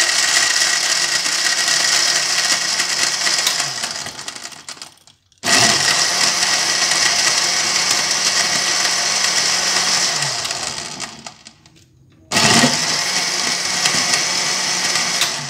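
Countertop electric blender running at full speed, blending yogurt, milk and ice into lassi, in three runs: it winds down and stops about five seconds in, starts again, winds down around eleven seconds and starts once more about a second later.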